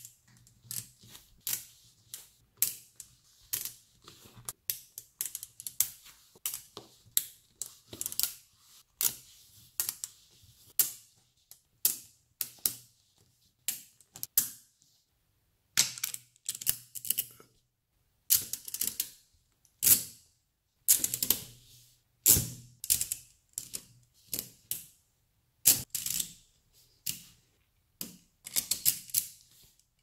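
Neodymium magnet balls snapping onto one another, each contact a sharp metallic click. The clicks come in quick irregular clusters separated by short pauses.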